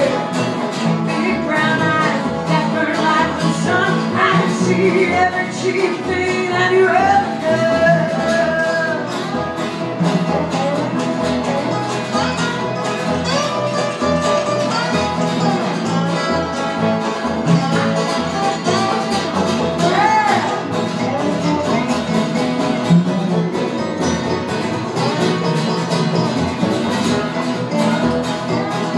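Live acoustic bluegrass-country band playing: strummed acoustic guitar, banjo and upright bass, with a woman singing lead.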